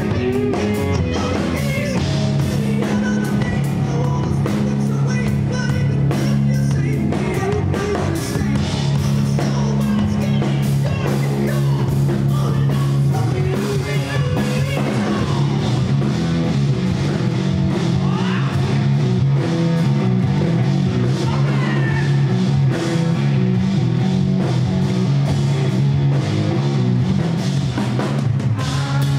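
Rock band playing live: a man singing lead over guitar, steady low notes and a drum kit with cymbals.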